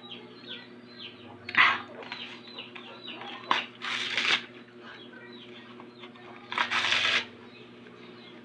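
Birds chirping with short, falling calls, several a second, over a faint steady hum. Four brief bursts of noise break in, the loudest about one and a half seconds in and the longest about a second before the end of the middle stretch.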